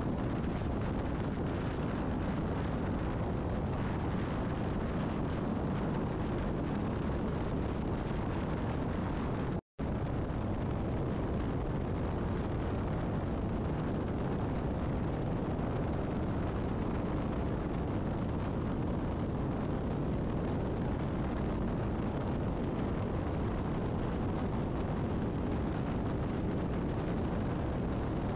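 Steady wind and road rumble of a moving vehicle at highway speed, heavy in the low end with no engine note standing out. It cuts out for an instant about ten seconds in.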